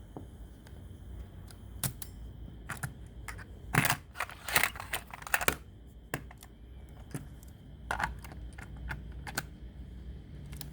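Irregular clicks and light clatter of small hard parts being handled, coming in two clusters, about four seconds in and again about eight seconds in.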